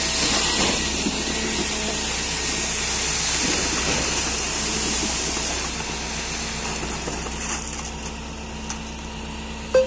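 Concrete pump running, with a steady hissing rush and engine hum as concrete is delivered through the pipe into the wall formwork; the noise quietens over the last few seconds.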